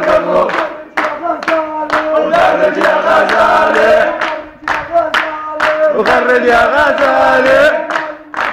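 A crowd of men singing and chanting a zaffeh celebration song together, with rhythmic hand-clapping.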